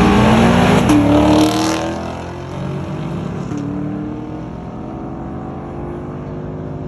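Car engine accelerating hard, loudest for about the first second and a half, then fading as it pulls away, its pitch climbing steadily.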